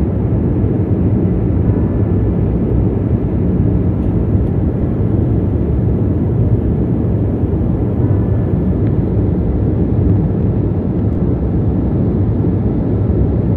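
Steady low-pitched engine and airflow noise of a jet airliner in flight above the clouds, heard from inside the passenger cabin.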